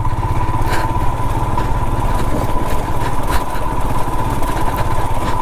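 Royal Enfield Himalayan's single-cylinder engine running steadily as the motorcycle rides over a loose, rocky track, with a few short knocks.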